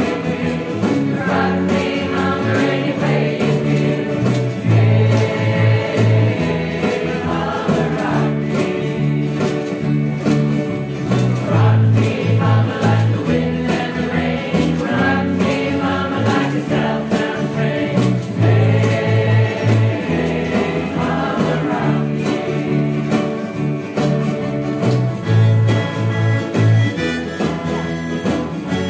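A ukulele group and a few acoustic guitars strum together while the players sing in chorus, with a steady strummed beat.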